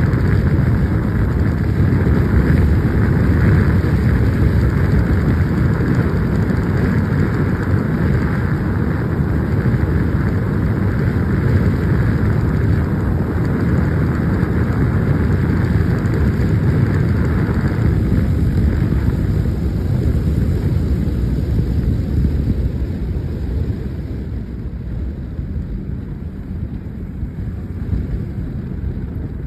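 Wind rushing over the microphone of a handlebar-mounted phone on a sport motorcycle, with the engine running underneath, while the bike cruises in sixth gear at about 135 km/h. The rush eases in the last several seconds as the bike slows to about 80 km/h.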